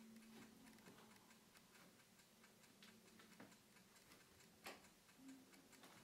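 Near silence with faint, regular ticking over a low steady hum, and one louder click about four and a half seconds in.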